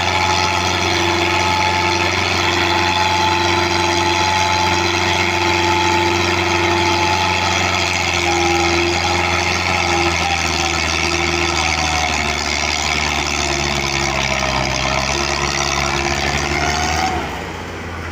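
Belarus tractor's MTZ-80 four-cylinder diesel engine running steadily at raised revs, with a thin whine over it that wavers in pitch. Near the end the revs drop and it settles to a quieter, lower idle.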